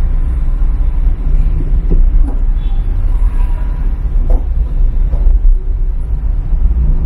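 Steady low rumble of a car driving slowly in city traffic, heard from inside the car, with faint brief sounds from the traffic around it.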